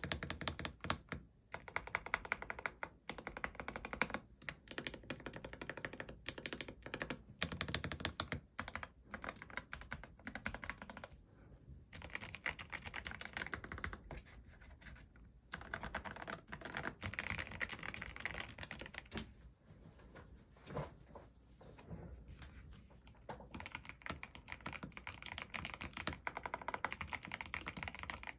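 Typing on a YUNZII B75 Pro gasket-mount 75% mechanical keyboard fitted with Milk linear switches: a fast, continuous stream of keystrokes, with brief pauses about twelve and fifteen seconds in.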